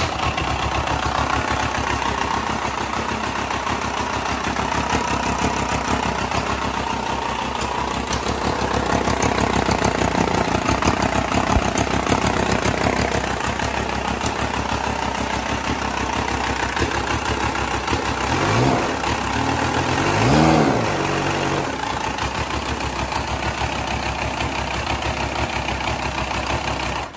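Volkswagen 2.0 TDI BHW four-cylinder unit-injector diesel running on a test stand just after being started. It idles with diesel clatter and is revved briefly twice about two-thirds of the way through. It stops suddenly near the end as it is shut off.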